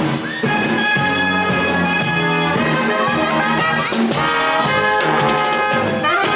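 Marching brass band playing a tune close by, with trumpets and trombones carrying the melody.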